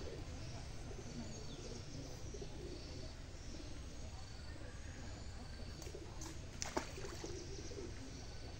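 Birds calling, with thin high chirps recurring every second or so and lower wavering calls, over a steady low rumble. One sharp click a little past two-thirds of the way through.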